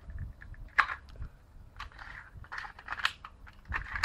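Scattered clicks, taps and rattles of hard plastic being handled while a spring airsoft pistol and its test BBs are readied for firing. One sharper click comes about a second in, and there is a short rustle a little after midway.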